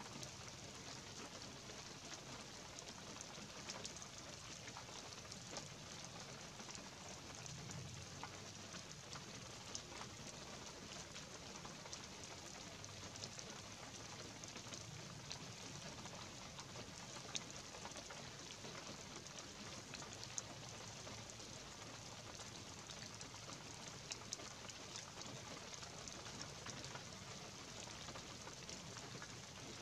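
Light rain falling in pine woods: a faint, steady hiss of drizzle dotted with soft ticks of single drops, with a couple of sharper drips partway through.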